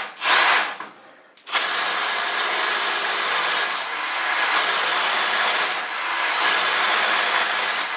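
Power drill with a 3/4-inch concrete bit boring into a concrete wall. There is a short burst at first, then from about a second and a half in it runs steadily with a high whine, easing off briefly twice.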